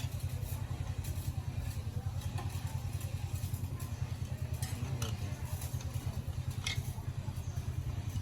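A machine running with a steady low drone and a fast even pulse, with a few sharp metallic clinks of tools on metal.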